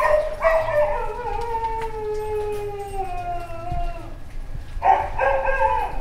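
Dog howling: a short bark, then one long howl that slowly falls in pitch for about three and a half seconds, then two short barks near the end.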